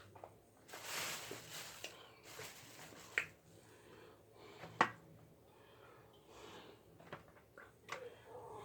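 Eating and handling food at the table: a brief rustle about a second in, then scattered light handling noises and two sharp clicks, the louder one about five seconds in.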